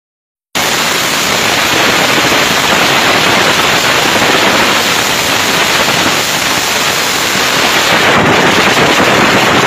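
Motorcycles racing at speed, heard from a moving motorcycle: a loud, steady, crackling rush of engine and wind noise that cuts in abruptly about half a second in.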